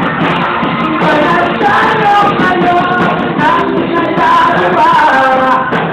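Student rock band playing live: a singer holds long notes over bass and lead guitar, keyboard and drums.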